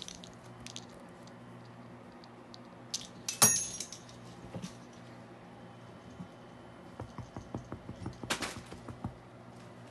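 Sharp clinks and knocks of hard objects over a faint low hum: a couple of clicks about three seconds in, then the loudest clink with a brief ring, and a run of light ticks and taps with another sharp clink near the end.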